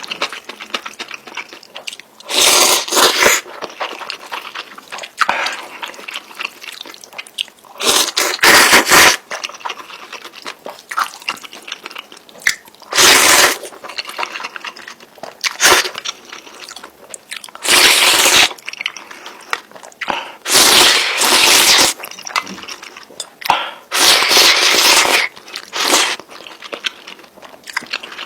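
Close-miked eating of instant noodles: steady chewing and mouth sounds, broken every few seconds by a loud burst of about a second.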